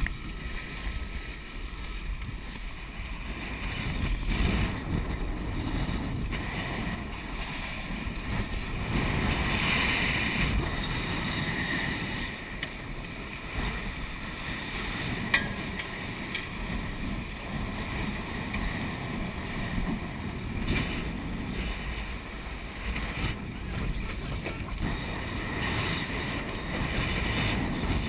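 Water rushing and splashing along the hull of a sailboat moving fast under spinnaker, with wind buffeting the microphone. A single sharp click about halfway through.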